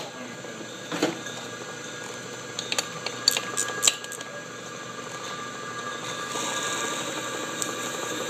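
Metal lathe running while a twist drill bores into the centre of a spinning steel bearing cap: a steady whine with a few sharp clicks in the first four seconds. The cutting noise grows a little louder from about six seconds in.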